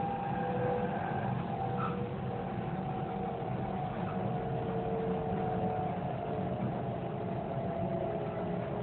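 Steady running noise inside the car of a Kintetsu Ise-Shima Liner limited express train under way, with a faint whine that slowly sinks in pitch.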